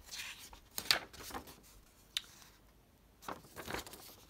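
Sheet of printed paper ephemera rustling and crinkling as it is unfolded and turned over by hand, in a few short rustles with a sharp tick about two seconds in.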